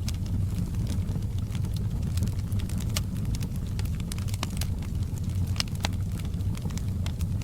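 Wood fire burning in a fireplace: a steady low rumble of flames with irregular sharp crackles and pops, the strongest about three seconds in and again near six seconds.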